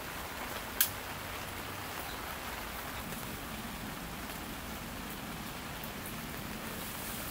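Steady rain falling, with one sharp tick of a drop or tap about a second in.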